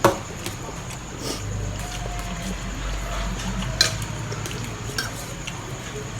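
Wet eating sounds of a mouthful of kerabu Maggi (spicy instant-noodle salad) being chewed and slurped, with a sharp click at the start and another about four seconds in, over a steady low hum.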